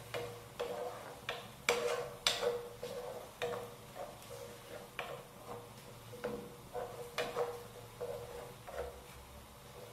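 Wooden spoon stirring mushrooms in milk in a non-stick frying pan, knocking and scraping on the pan in irregular taps, the loudest about two seconds in, over a faint steady hum.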